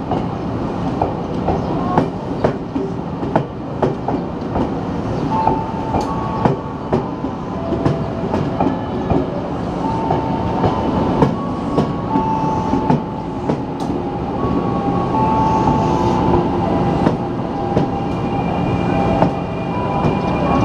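KRL Commuter Line electric multiple unit rolling slowly past, its wheels clicking irregularly over rail joints under a steady rumble. High whining tones hold and step between a few pitches.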